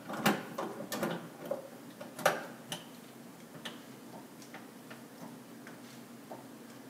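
Clicks and knocks of a Tuttnauer 2340A autoclave's door T-handle being spun and screwed tight to seal the door, the loudest a little over two seconds in, then fainter, sparser ticks.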